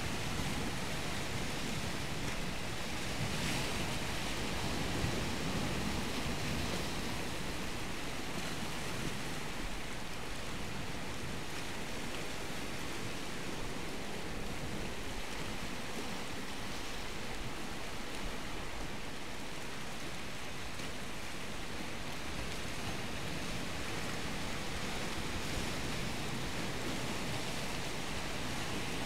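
Steady wash of sea surf.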